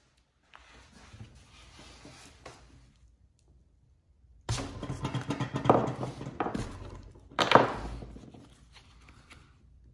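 Gloved hands handling the toy truck's rusty wheel-and-axle assemblies on a rubber mat: faint rubbing at first, then from about halfway a run of clunks and scraping with two louder knocks.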